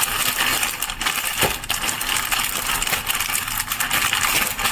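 Plastic bag holding chicken thighs and dry spice rub being shaken, its sides crinkling and rustling continuously with many small crackles.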